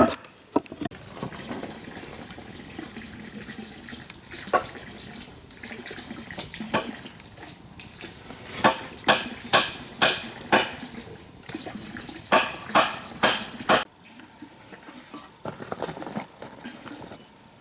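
A run of sloshing, watery noise, then two quick runs of sharp knocks, about two or three a second.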